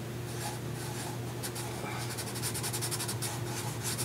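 A pen scribbling rapidly on paper to colour in small circles, a quick run of scratchy back-and-forth strokes that grows thicker in the second half, over a faint steady low hum.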